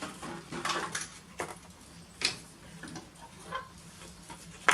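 A string of sharp metallic clicks and taps, roughly one every three-quarters of a second: a wrench working loose the oil drain bolt on a Honda FG201 mini tiller.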